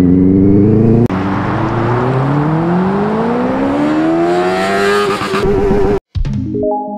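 Benelli TNT 600i inline-four motorcycle engine accelerating hard in first gear, its pitch climbing steadily. The sound breaks off abruptly about a second in, then rises smoothly again for about four seconds before cutting off near the end.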